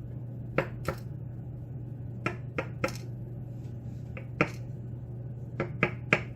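Small, sharp clicks and taps, about ten of them at irregular intervals, as lock pins and the plug are handled during disassembly of a pin-tumbler lock. A steady low hum runs underneath.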